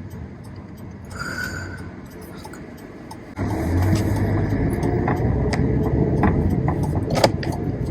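Mazda Miata driving, heard from inside the car: a steady low engine and road rumble that suddenly gets much louder about three and a half seconds in, with a sharp click near the end.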